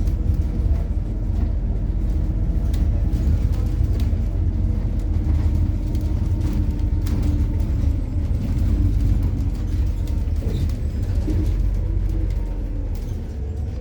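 MAZ-103 city bus running on methane, heard from inside while it drives: a steady low engine and road drone with light rattles, the engine pitch shifting a little about ten seconds in.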